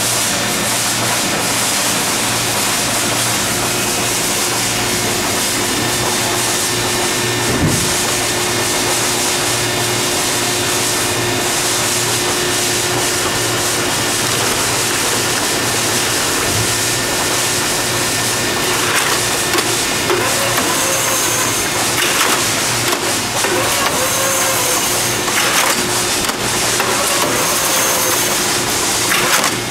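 Harris Gorilla two-ram baler running: a steady loud mechanical noise with a constant hum, as of its hydraulic power unit. In the second half come several short knocks and brief squeals from the machine at work.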